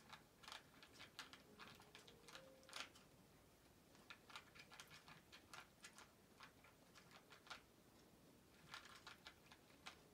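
A cat crunching dry kibble: faint, irregular crisp clicks in quick clusters, with short pauses between mouthfuls.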